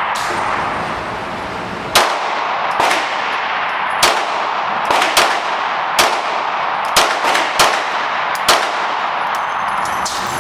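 Gunshots at a shooting range: about a dozen sharp reports at an irregular pace, some close together in quick pairs or triples, each with a short ringing tail, over a steady hiss.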